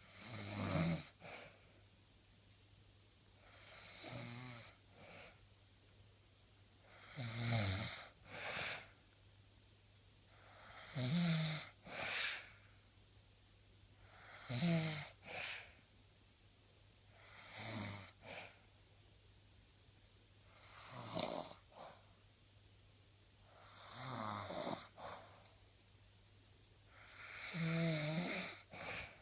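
A person snoring steadily, one snore about every three and a half seconds, each ending in a short second burst.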